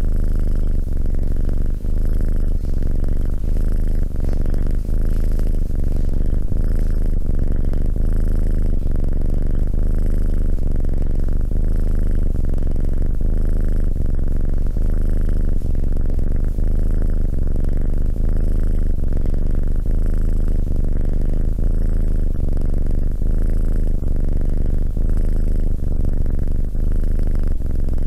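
Tabby kitten purring right at a microphone: a loud, steady low purr that swells and eases in an even cycle, in and out with its breathing.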